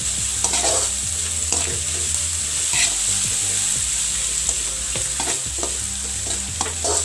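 Sliced onions and carrot strips sizzling in oil in a metal kadai, being stirred with a metal spatula that scrapes and taps against the pan again and again.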